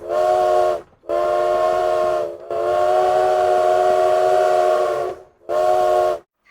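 Steam locomotive whistle sounding four blasts (short, medium, long, short), each a chord of several tones over a hiss of steam, dropping slightly in pitch as it dies away.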